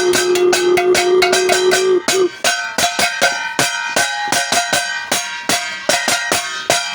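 Instrumental passage of a song: fast, even percussion hits with a held note that cuts off about two seconds in, then steady ringing tones over the beat.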